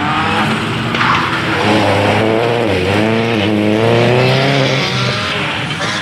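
Subaru Impreza WRC rally car's turbocharged flat-four engine revving hard as the car accelerates past. Its pitch dips briefly about halfway through, then climbs again and falls near the end.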